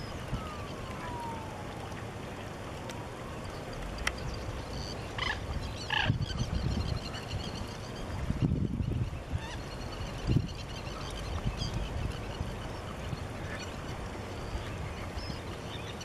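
Steady low rumble with scattered distant bird calls. There is a falling whistle near the start and two short sharp calls about five and six seconds in, with a few low thumps around the middle.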